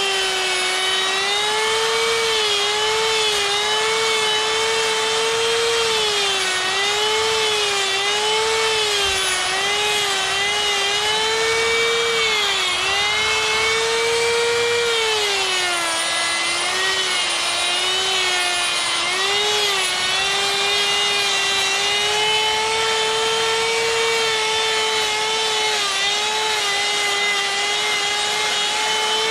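Electric rotary tool with a sphere burr, running at high speed and grinding into wood as the eyebrows of a carved bear are shaped. It gives a steady high whine whose pitch sags and wavers each time the burr is pressed into the wood, with the deepest dips about halfway through.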